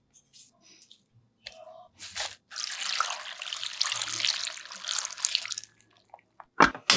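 Water poured in a thin stream into a wide steel pot full of mussels and vegetables, splashing and trickling for about three seconds. A sharp click comes near the end.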